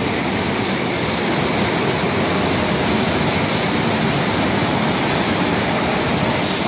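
Folder-gluer machine running: a steady, even mechanical noise with a constant high hiss over it.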